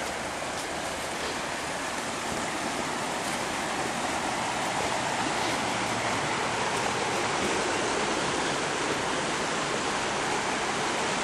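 Stream water rushing steadily, growing a little louder partway through.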